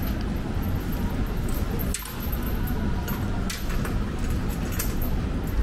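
Wet city street at night: a steady wash of rain and street noise with a low rumble, broken by a few light ticks and clinks.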